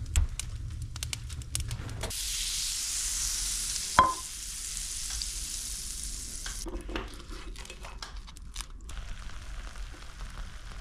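Fat sizzling in a frying pan on a wood-burning stove with a pizza frying in it: loudest from about two to six and a half seconds in, quieter and crackly after that. A single sharp knock about four seconds in. At the start, a low rumble with crackles, fitting the wood fire burning in the stove.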